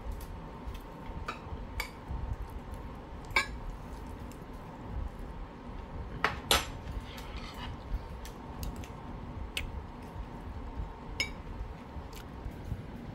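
Metal spoon clinking and scraping against a ceramic dish while scooping fried rice: a series of scattered sharp clinks, some ringing briefly, the loudest a little over three seconds in and again about six and a half seconds in.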